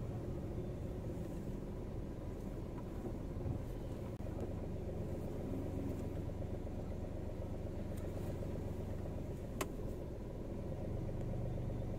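Car engine running steadily, heard from inside the cabin, as the car is manoeuvred at low speed into a parking space. Two light clicks come in the last few seconds.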